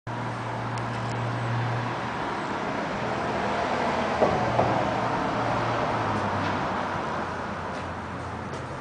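Road traffic noise: a motor vehicle running with a low steady hum, with two short squeaks near the middle.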